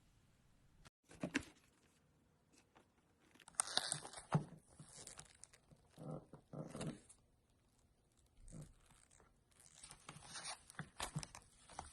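Slime being squeezed, stretched and pulled apart by hand, crackling and tearing in irregular bursts with short quiet pauses between handfuls.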